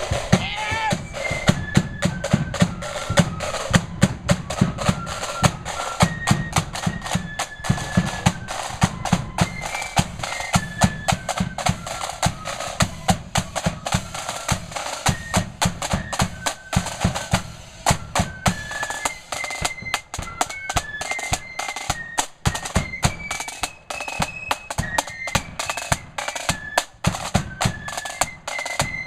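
Marching flute band playing a tune: flutes carry a high melody over fast rattling snare drums and a bass drum beat.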